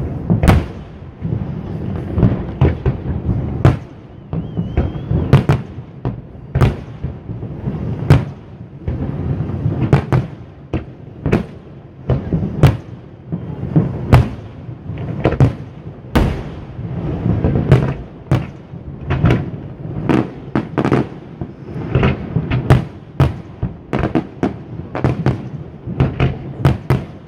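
Aerial fireworks display: a rapid, irregular run of sharp bangs and crackles from bursting shells, several a second at times, over a continuous low rumble.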